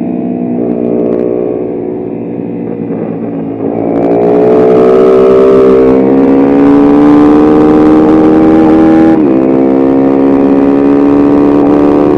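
Mini road-racing motorcycle engine accelerating out of a corner at part throttle, then opening up about four seconds in with a steadily climbing note. Just after nine seconds the pitch drops at an upshift and then climbs again. Wind rushes over the helmet-mounted microphone during the hard acceleration.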